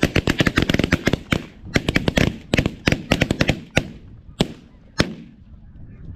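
Volley of shotgun fire from several hunters shooting at snow geese: rapid, overlapping shots for about the first second, thinning to single shots, with the last one about five seconds in.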